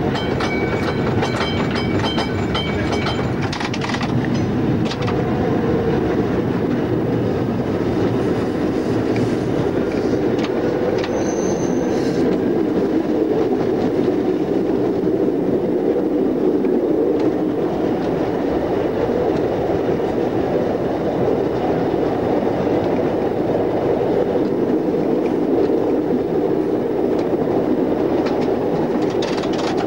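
Interurban tram railcar running along the track, heard from the driver's cab: a steady rumble of the running gear, with a run of clicks from the wheels over rail joints in the first few seconds.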